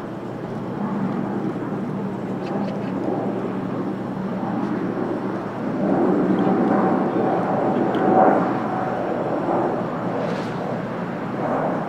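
Jet engines of an Airbus A320neo, Pratt & Whitney geared turbofans, making a steady rushing rumble with a low hum underneath. It swells about six seconds in, when a higher whine joins, then eases off.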